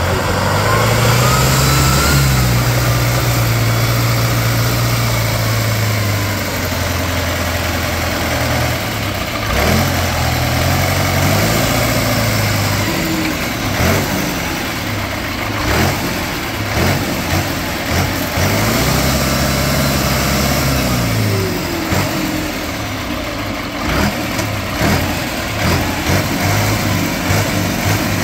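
Diesel engine of a tube-framed truck-trial buggy revving hard under load in three long bursts, each rising, holding and easing off, as the buggy climbs a steep muddy bank. A run of sharp knocks comes in the second half.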